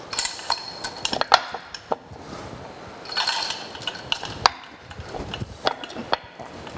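Irregular sharp metal clinks and knocks, with short rattles of hoist chain near the start and about three seconds in, as a heavy cast-iron universal milling head hanging from a chain hoist is shifted and nudged into place on the mill.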